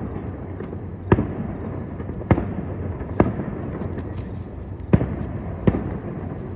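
Aerial fireworks bursting: five sharp bangs at uneven intervals, roughly a second apart.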